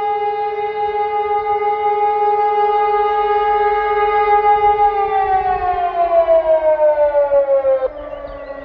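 Civil defence sirens sounding a monthly test alarm: an E57 electromechanical siren and an Ergatec EWS4 electronic siren. A steady, loud siren tone begins falling in pitch about five seconds in. Near the end the louder sound cuts off abruptly, and a quieter, lower tone keeps sliding downward.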